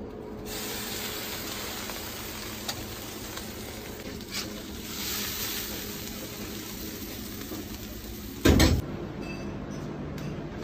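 Fish wrapped in grape leaves sizzling on a hot grill grate: a steady hiss with a few light clicks. About eight and a half seconds in there is one loud, short thump, and the sizzle then drops away.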